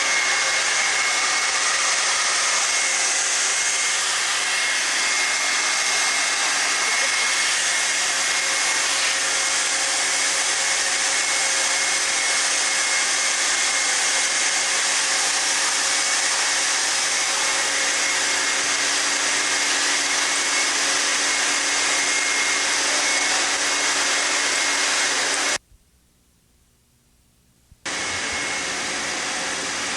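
Steady whirring hiss with a faint high whine held on one pitch, cutting out for about two seconds near the end and returning a little quieter.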